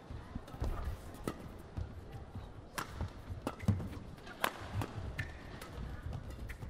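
Badminton rally: a string of sharp racket strikes on the shuttlecock, irregularly spaced, with players' feet thudding on the court.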